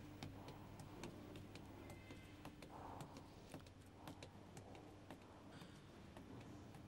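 Near silence: room tone with a faint steady low hum and scattered soft ticks and clicks.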